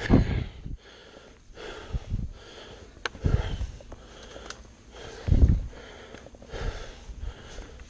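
A person breathing hard and heavily, out of breath from exertion, with loud puffs every second or two.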